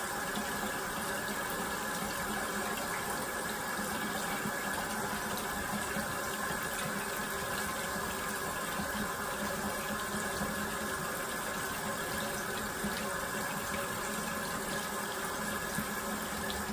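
Bathroom sink tap running steadily while a face is rinsed with a wet washcloth. The water is cut off suddenly at the very end.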